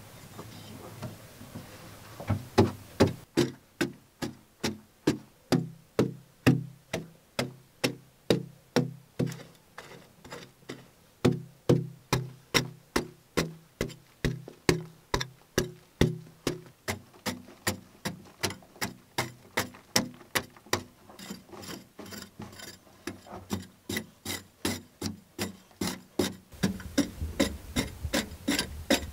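A hand pick chopping into hard-packed earth over and over, about two blows a second, each a short dull thud.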